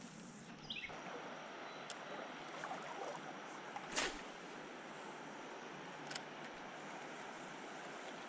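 Steady rush of shallow river current flowing through riffles. A few sharp clicks and knocks cut in, the loudest about four seconds in.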